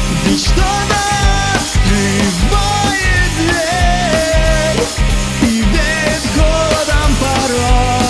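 Instrumental rock music: drums and bass under a held lead melody that slides between notes.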